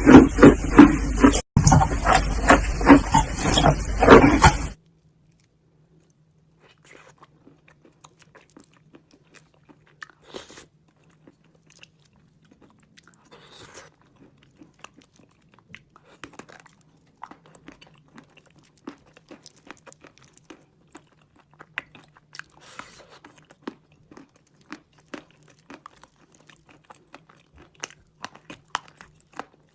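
Chalk and clay being bitten and chewed close to the microphone: quiet, crisp, irregular crunches and crackles. A loud, dense sound fills the first few seconds and cuts off abruptly about five seconds in.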